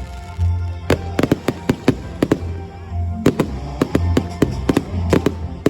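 Fireworks going off in a quick, irregular run of sharp bangs and crackles, several a second, over loud music.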